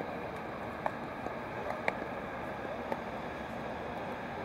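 Steady outdoor wind noise on the microphone, with four sharp, short knocks at irregular intervals.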